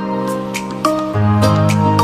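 Instrumental background music: held synth chords that shift every second or so, with sharp percussion hits at a regular beat.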